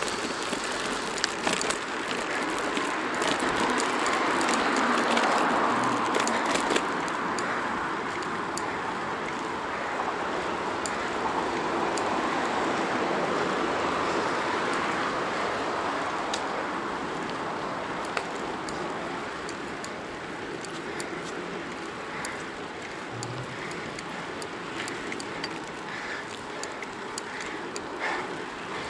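Road bike ridden up a spiral concrete ramp: a steady rush of tyre and wind noise with scattered small clicks and rattles. It is loudest about five seconds in and eases off in the second half.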